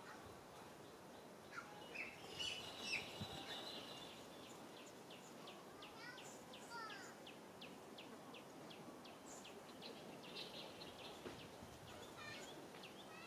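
Faint background with bird chirps: a few high chirps about two seconds in, then a run of short repeated high notes, about three a second, lasting several seconds.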